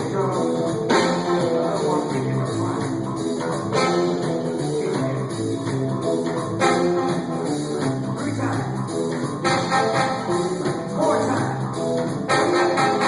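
Live rock band playing through the PA at a sound check, with guitar over a steady bass line.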